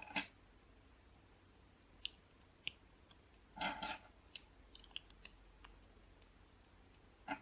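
Plastic LEGO bricks clicking as they are handled and pressed together: a few sharp clicks, a short rattle of pieces a little under four seconds in, then scattered light clicks.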